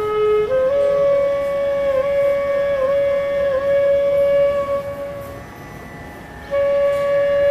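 Background music: a flute melody of long held notes with small ornamental dips in pitch. It breaks off briefly about five and a half seconds in, then resumes.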